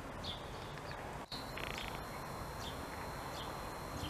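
Small birds chirping over steady outdoor background noise: a short, high chirp repeats about every three quarters of a second, with a quick rattling trill near the second second.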